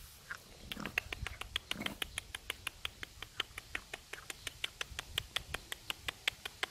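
Several cats crunching dry kibble from a shared plate: a quick run of short, sharp crunches, several a second, starting about a second in.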